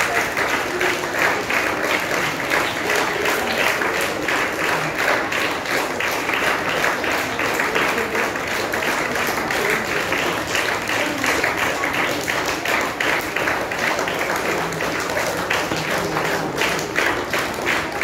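Audience applauding: a long, unbroken round of clapping from many hands.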